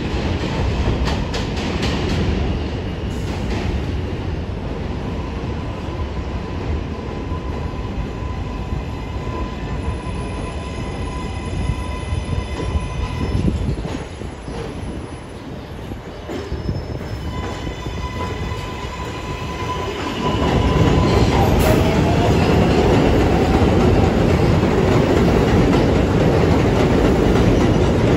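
New York City Subway R142A train on elevated steel track, approaching with a steady wheel rumble and a high-pitched squeal through the middle stretch. About twenty seconds in, the rumble grows much louder as the cars roll past close by, with a gliding whine over it.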